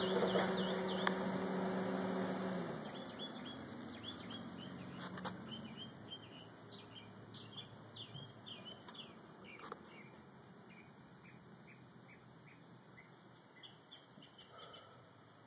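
Small birds chirping, many short repeated chirps that thin out toward the end. A steady low hum stops about three seconds in, and there are two sharp clicks, about five and ten seconds in.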